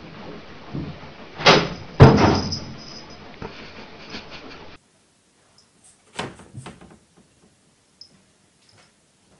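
A cat's failed jump from a television set up toward a window air conditioner: two loud bangs about half a second apart, then a rattle that dies away. A few faint knocks follow later.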